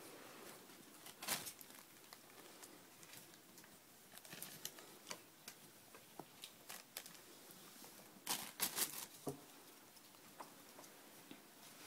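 Ferrets scrabbling on carpet and crinkling a plastic bag and wrappers: scattered light rustles and clicks, with louder bursts of crackling about a second in and again about eight seconds in.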